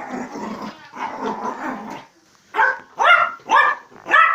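A dog growling roughly for about two seconds, then barking sharply four times, about half a second apart.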